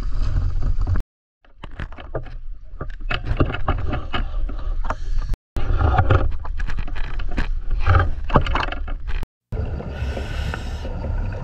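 Water splashing and sloshing right at the microphone at the surface of the fjord beside a boat, with dense crackling spatter and a low rumble, cut off three times by brief dropouts. Near the end the microphone goes under water and the sound becomes a more even muffled hiss.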